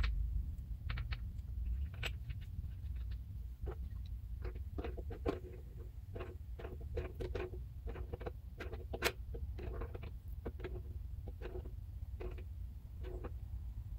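Irregular light clicks and clinks of small metal pipe fittings being handled, over a steady low hum.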